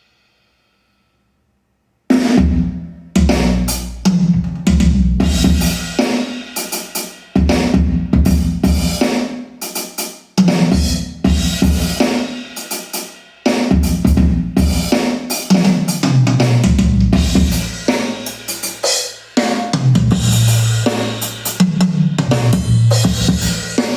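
Drum-heavy music played on Hivi Swans D1200 speakers, starting suddenly about two seconds in after silence. Kick drum, snare and cymbals hit over deep bass notes.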